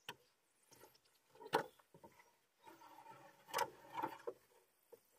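A few sharp knocks, such as wood being struck during deck building. The loudest comes about a second and a half in and another about three and a half seconds in.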